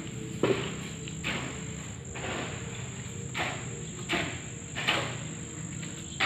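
A steady, high insect trill runs throughout. Footsteps sound over it, about one a second, as a person walks along a tiled terrace.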